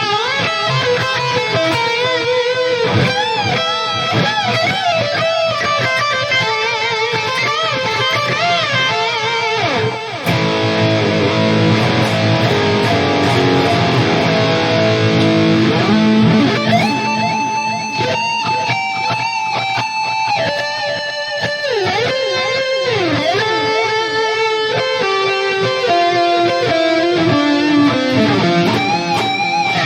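Electric guitar played through a Valeton GP200 modeling unit: a melodic lead line with bent and wavering notes, turning to fuller, denser playing with more bends about ten seconds in.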